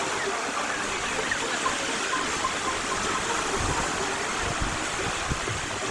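Steady rushing wash of Azov Sea surf breaking on a beach, with a few low rumbles in the second half.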